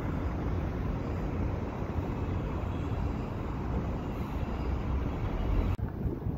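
Steady outdoor traffic noise, a continuous low rumble of road vehicles at a city intersection, broken off by an abrupt cut near the end.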